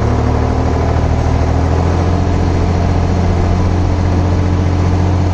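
Preet 955 tractor's 50 hp three-cylinder non-turbo diesel engine revving up on the hand throttle. It rises in pitch over the first two or three seconds, then holds steady near its top of about 2300 rpm with no load. Its note is likened to a Swaraj 960.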